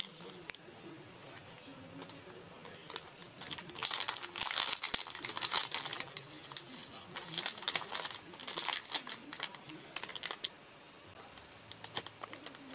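Plastic biscuit wrappers crinkling and rustling in irregular bursts as the packs are handled and one is torn open. The crinkling is loudest about four to six seconds in.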